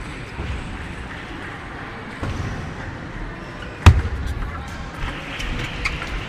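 Table tennis hall background with one loud sharp knock about four seconds in, followed by a few light, irregular clicks of a table tennis ball.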